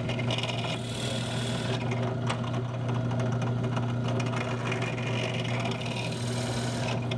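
Benchtop drill press running with a steady motor hum while a countersink bit bores pilot holes into a sapele wood molding. The cutting adds a higher hiss in stretches.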